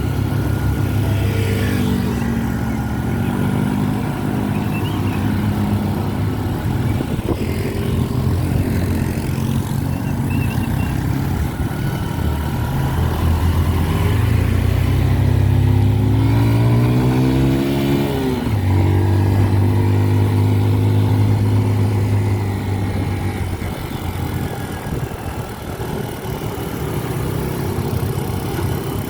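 A vehicle engine running under way, its pitch climbing for a few seconds past the middle, then dropping suddenly and holding steady, as when a gear is changed.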